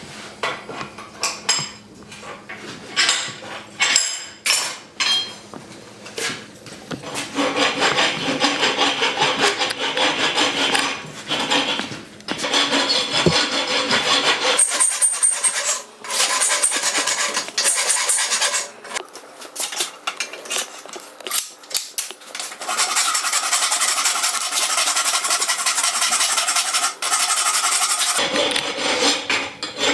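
A few sharp metal strikes with a ringing tone in the first seconds, then long spells of rapid back-and-forth hand scraping on the forged iron of a horseshoe hinge.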